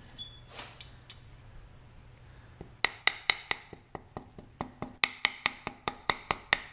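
Hammer tapping a fork seal down into a motorcycle fork tube, a couple of single taps and then, from about three seconds in, a rapid run of taps about five a second, each with a short metallic ring.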